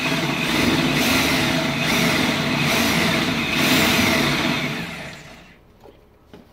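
Corded electric drill running under load with a cobalt bit cutting into the truck's heavy steel frame. It runs for about five seconds with a wavering squeal from the bit, then winds down and stops, leaving a few faint clicks.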